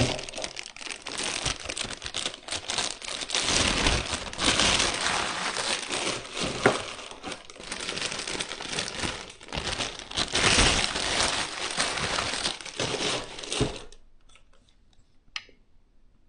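Plastic packaging crinkling and rustling, with scattered small clicks and knocks, as the parts of a liquid CPU cooler are unpacked from their bags; it stops abruptly near the end.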